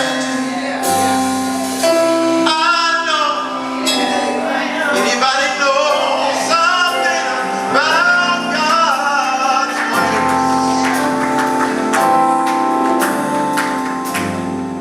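Gospel group singing with band accompaniment, male and female voices over held chords and percussion.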